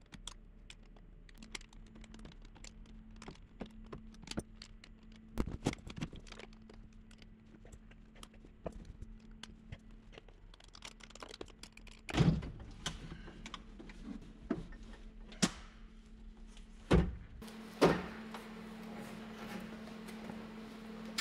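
Hand tools and metal parts clicking, clinking and knocking as an excavator's operator seat is unbolted and taken out, with a few louder thunks in the second half.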